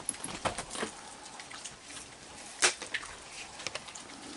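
Steady rain falling with scattered drips, and a few sharp clicks and knocks, the loudest a little past halfway.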